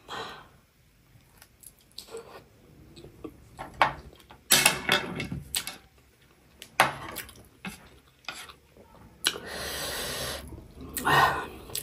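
Close-up eating sounds: chewing a bite of dumpling, and chopsticks clicking and scraping against a plate while stirring noodles. The clicks come scattered, with a few longer noisy stretches of a second or so.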